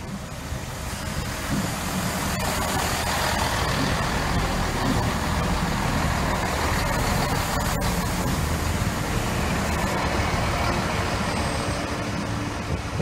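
Class 166 Network Turbo diesel multiple unit running along the platform close by: diesel engine and wheels on the rails. The sound builds over the first couple of seconds, holds steady, then eases a little near the end.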